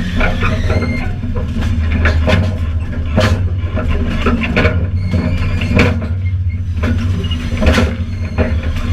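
Train running: a steady low rumble with irregular knocks and rattles, and a few faint high squeals.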